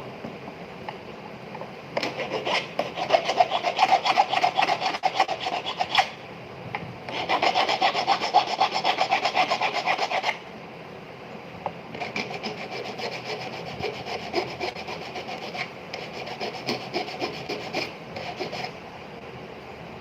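A hand file being worked back and forth on a silver ring in fast, even strokes, in three bouts: the first two louder, the third lighter and longer.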